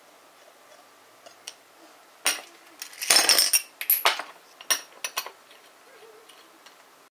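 Ice cubes and a metal spoon clinking against a ceramic bowl. A sharp clink comes a little over two seconds in, then a quick run of rattling clinks, then a few single clinks.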